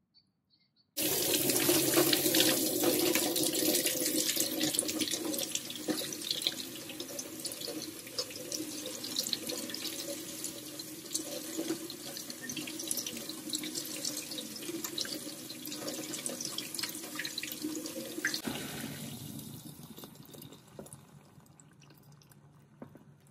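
Kitchen tap running into a stainless steel sink, splashing over hands as they rinse a rehydrated sea cucumber; it starts suddenly about a second in. About three quarters of the way through it gives way to a quieter pour of water from a kettle into a ceramic casserole dish, fading out near the end.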